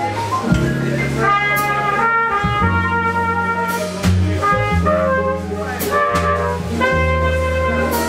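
Live jazz trumpet playing a melody of held notes over a plucked double bass, with occasional cymbal strokes from the drum kit.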